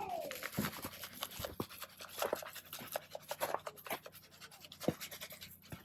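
Irregular gritty crackling and scraping as rock salt is spread and crunched into icy, wet snow on the ground.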